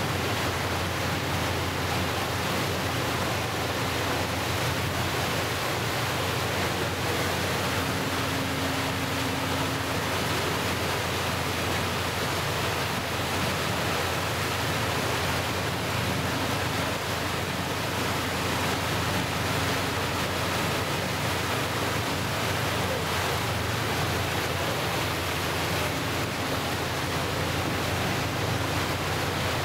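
Steady rush of wind and choppy waves breaking, with wind noise on the microphone.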